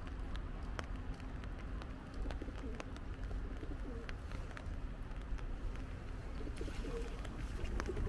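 Rain dripping onto an umbrella as scattered sharp ticks over a low steady rumble, with a bird cooing faintly in the middle and again near the end.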